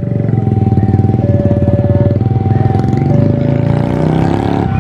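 Railway level-crossing warning alarm sounding, alternating between two steady tones about once a second. Under it an engine runs loudly and climbs in pitch over the last couple of seconds.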